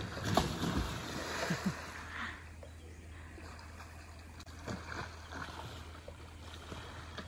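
Water splashing and sloshing with a few light knocks, over a low steady hum.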